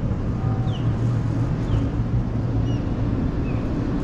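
Steady low engine rumble with a hum in it, with a few short, faint high chirps over the top.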